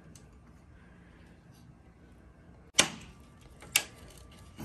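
Two sharp snaps about a second apart, more than halfway in, as a plastic trim removal tool pries at a chrome Chevrolet bowtie grille emblem that is still clipped in place.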